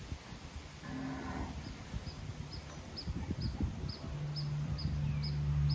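Red Brahman cattle mooing: a short call about a second in, then a long, low moo starting about four seconds in. A faint high chirp repeats about twice a second behind it.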